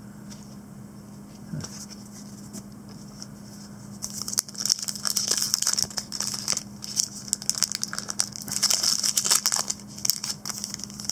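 Foil wrapper of a Donruss Optic baseball card pack crinkling loudly as fingers work it open, starting about four seconds in. Before that there is only a low steady hum and one small click.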